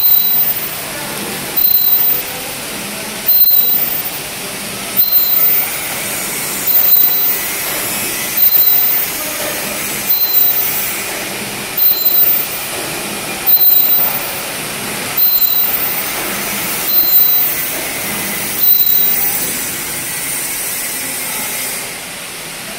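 Bottom-gusseting bubble envelope making machine running: a loud hissing stroke about every 1.7 seconds over a steady machine noise. The strokes stop about 19 seconds in, leaving only the steady noise.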